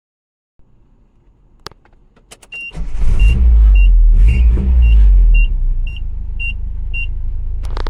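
A 1985 Nissan 720's 2.4-litre Z24 four-cylinder engine starts a few seconds in, runs loud and fast for a couple of seconds, then settles to a steady idle. A high warning chime beeps about twice a second at the same time. A few faint clicks come before the start.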